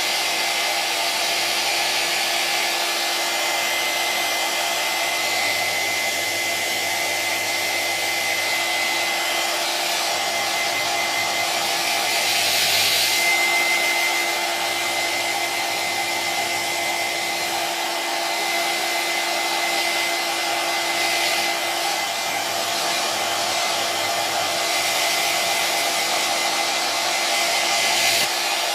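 Electric hair dryer running steadily, a continuous rush of air with a faint high motor whine. It swells slightly about halfway through.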